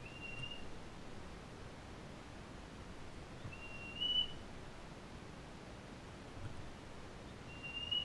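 Osprey giving three short whistled calls a few seconds apart, each a single slightly rising note, the middle one the loudest, over a steady hiss.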